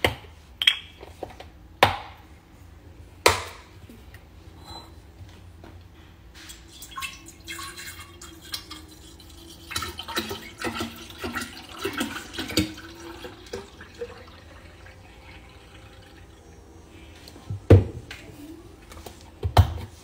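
Milk poured from a carton into a glass carafe, splashing and glugging for several seconds in the middle. Sharp knocks of glass and carton being set down on a stone countertop come at the start and again near the end.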